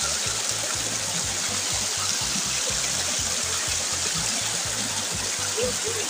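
Spring water running in a steady rush, under background music with a steady low beat.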